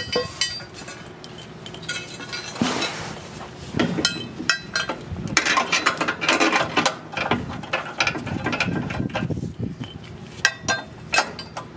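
Steel tow bar bracket being slid into place against a car's front subframe: metal scraping and clinking, with many sharp clicks and a few longer rough scrapes.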